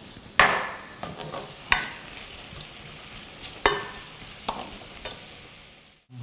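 Diced onion sizzling in butter and oil in a stainless steel pan while a black kitchen spoon stirs and scrapes it, the spoon knocking sharply against the pan four times. The onion is being sweated until soft and translucent.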